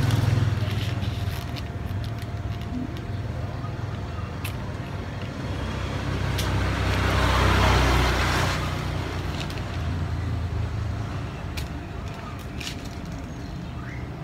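Low rumble of motor vehicle traffic, with one vehicle swelling and fading as it passes about seven to eight seconds in. A few light clicks are scattered through.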